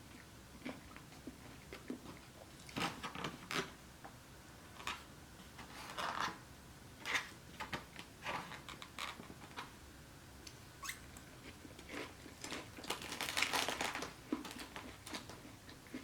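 Biting and chewing of crunchy fried onion rings: irregular crisp crunches with quieter chewing between, heaviest in a run of crunching near the end.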